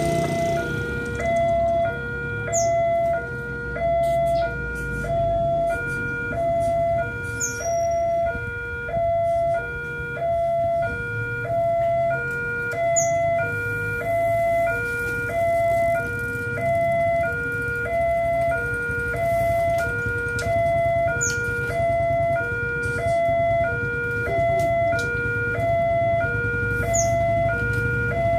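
Indonesian railway level-crossing warning alarm sounding its electronic two-tone ding-dong, a high and a low tone alternating about once a second. It starts suddenly and keeps repeating, warning that a train is approaching while the barrier is down.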